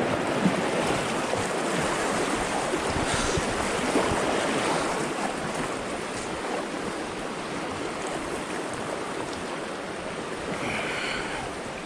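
Fast mountain river rushing steadily, with splashing as someone wades through the deep current.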